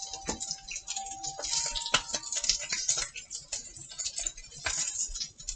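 Wooden chopsticks clicking and tapping against a ceramic plate while food sizzles in a frying pan, with a faint tune held in the background.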